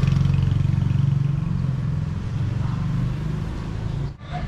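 A motor scooter's engine running close by as it passes, loudest at the start and fading over the next few seconds, with a brief drop-out about four seconds in.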